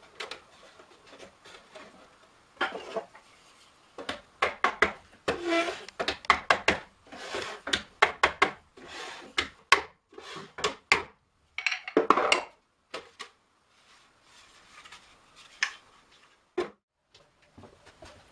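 Metal hoops being knocked down onto the wooden staves of a barrel-style lampshade with a hammer and a wooden hoop driver: a run of irregular sharp wooden knocks, some with a brief metallic ring, mixed with hoop-on-wood scraping. The knocks come thickest through the middle and thin out to a few faint taps near the end.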